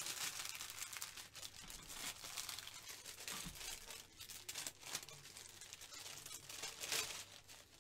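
Small plastic bags of diamond painting drills rustling and crinkling as they are handled and sorted, in uneven bursts.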